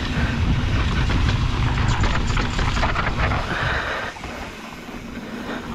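Wind buffeting a helmet-mounted action-camera microphone, over tyres skidding and rolling on loose dirt and the rattle of an e-mountain bike on a steep descent. The rumble eases about four seconds in.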